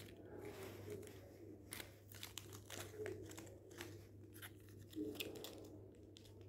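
Crumpled paper wrapper crinkling and crackling in quick, irregular spurts as a kitten bites and bats at it, over a faint steady low hum.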